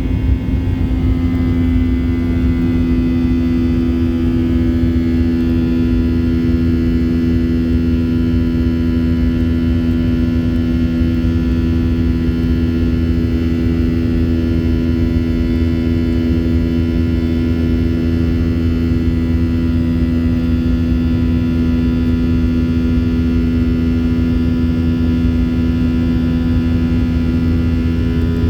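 Steady cabin noise inside a Boeing 737-800 under way: its CFM56-7B jet engines drone with a strong steady hum over a low rumble.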